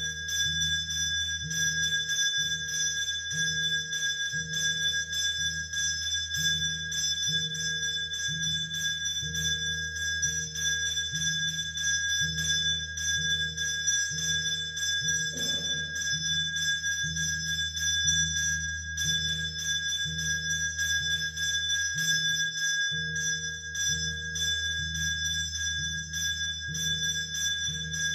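Temple hand bell (ghanta) rung continuously during the lamp-waving arati, a steady metallic ringing, over a low rhythmic beat about once a second.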